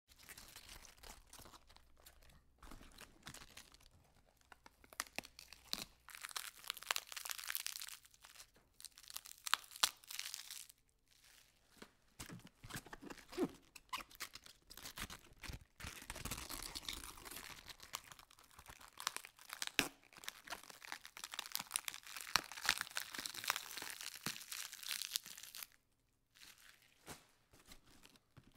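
Leaves being torn and peeled off a head of lettuce: crisp tearing and crunching crackles in spells of several seconds, with short pauses between.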